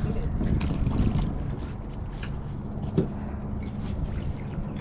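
Water lapping and slapping against a boat hull, with wind on the microphone and a steady low motor hum underneath.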